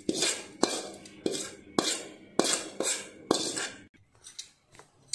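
A metal spoon scrapes and clinks against a steel pan and the steel jar of a mixer-grinder while sautéed onion, dal and banana flower are spooned in. There are sharp clinks about every half second, with scraping between, and only faint light taps in the last second or so.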